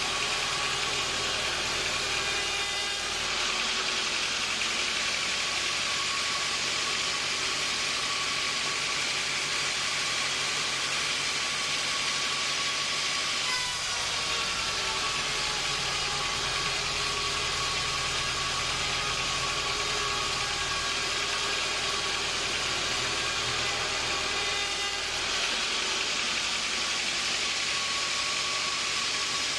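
Sawmill machinery running, a steady mechanical drone with a hiss and a constant whine; its tone changes about three seconds in, again near the middle, and again near the end.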